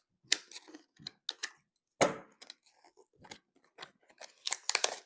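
Plastic toy packaging being handled and opened: irregular crinkles and sharp clicks, with a quick run of them near the end.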